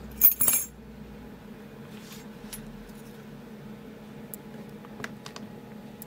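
A brief metallic jingle of keys on a key ring near the start, then a few faint ticks as small metal lock parts are handled.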